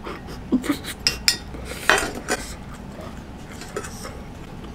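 Chopsticks and a stainless-steel ladle clinking and knocking against the metal hot pot: a cluster of light clicks and clinks over the first two and a half seconds, then quieter.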